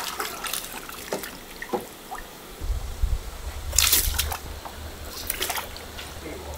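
Water splashing and sloshing in a plastic tub as live fish are scooped out with a landing net and seafood is scrubbed by hand in the water; the splashes come in irregular bursts, the loudest about four seconds in. A low steady hum comes in about two and a half seconds in.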